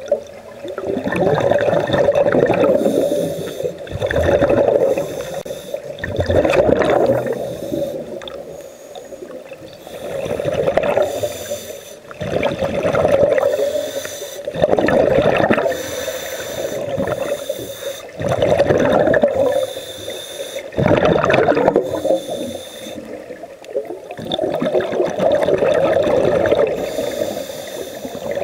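A scuba diver breathing through a regulator underwater, each breath a rushing hiss followed by a burble of exhaled bubbles, repeating every two seconds or so.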